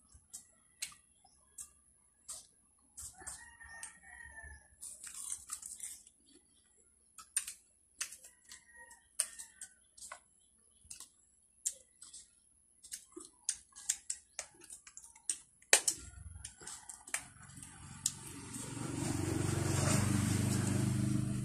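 Scattered small clicks and crisp crunches of people handling, biting and chewing watery rose apples (tambis). A few faint short calls sound in the background around four and eight seconds in, and a low rumble swells loudly over the last few seconds.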